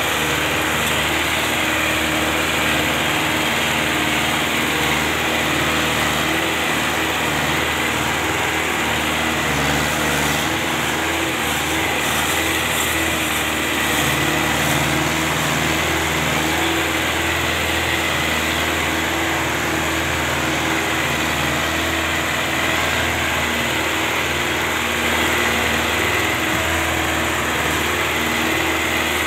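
Belarus 510 tractor's four-cylinder diesel engine running steadily at close range, hitched to a heavily loaded sugarcane trolley.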